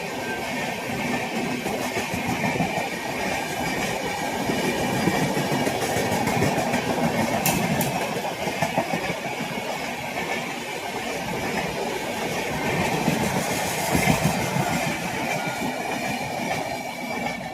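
A train passing close by: a continuous rumble and clatter of its wheels over the rail joints.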